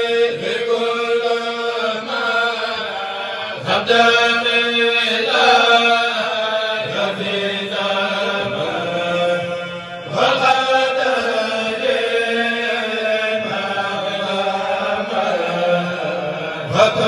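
A group of men chanting Mouride khassida verses together through microphones and a sound system, in long melodic phrases with held, bending notes. A new phrase starts about four seconds in, again about ten seconds in, and once more near the end.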